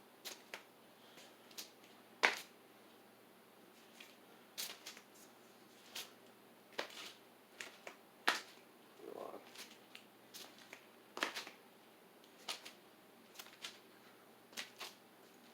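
Sharp clicks and ticks, scattered irregularly about once or twice a second, over a faint steady hum.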